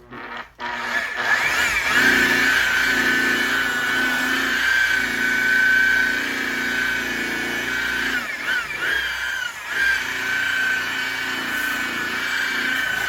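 Electric car-polisher motor starting about half a second in and running with a steady whine that dips and rises in pitch a few times, then cut off at the end.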